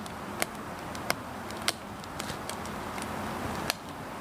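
Split firewood burning in a small portable fire-pit stove, crackling, with about five sharp pops and snaps over a steady hiss.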